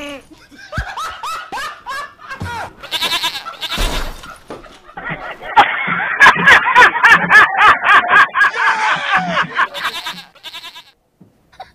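Comedy sound effects of bleat-like animal calls with some laughter, growing louder and denser about five seconds in.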